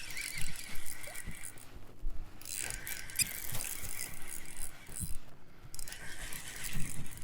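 Fishing reel being wound and clicking in three spells with short pauses as a hooked fish is played in.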